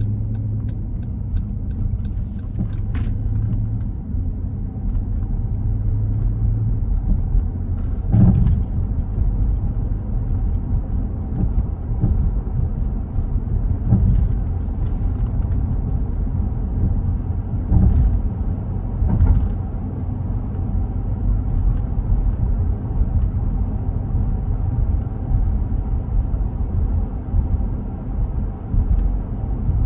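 A car's tyre and engine noise heard from inside the cabin while driving: a steady low rumble. It is broken by a few short thumps, about 8, 14, 18 and 19 seconds in.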